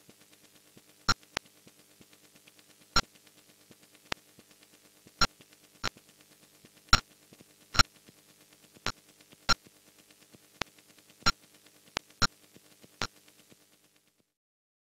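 Electronic score of sparse, irregularly spaced sharp clicks over a faint low drone, stopping a little before the end.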